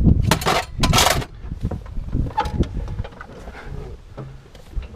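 Metal clinking and clattering: a few sharp clatters in the first second or so, then fainter scattered clicks.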